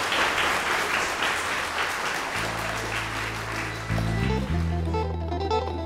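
Children clapping, the applause dying away over the first two or three seconds, as music with deep bass notes and plucked guitar comes in and grows louder about four seconds in.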